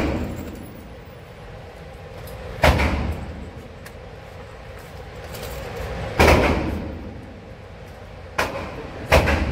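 Handgun shots in an indoor shooting range, single sharp cracks several seconds apart, each followed by a ringing echo: one about three seconds in, one about six seconds in, and a weaker and then a louder shot close together near the end.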